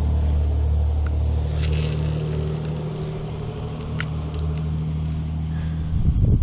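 Car engine running steadily with a low, even hum, and a few faint clicks over it.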